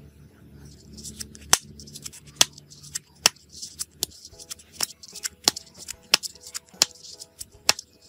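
Homemade pop-it fidget dome pressed repeatedly with a thumb: a crisp click about every three-quarters of a second, nine in all. Soft background music comes in about halfway through.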